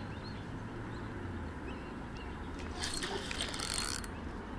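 Spinning fishing reel whirring fast for about a second near the end, with a hooked carp on the line.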